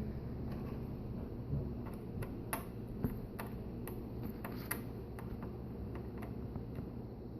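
Light, scattered clicks and ticks from small laptop screen screws being unscrewed and handled, most of them in the middle of the stretch, over a low steady hum.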